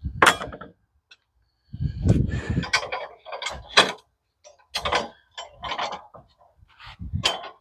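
Freshly sawn oak boards being handled: a string of wooden knocks and scrapes, with a longer scrape or slide about two seconds in.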